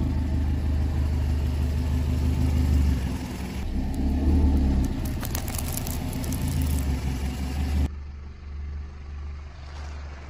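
Car engine running slowly with a steady low hum as the tyre rolls over and crushes things on asphalt. A little past the middle comes a run of sharp crackling crunches, and the background changes abruptly twice at edits.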